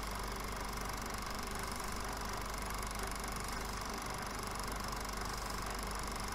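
A steady, unchanging mechanical drone with hiss and a low hum, with no changes in pitch or level.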